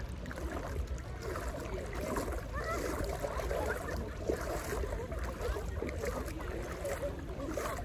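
Seaside ambience: wind rumbling on the microphone over sea water, with a jumble of distant voices.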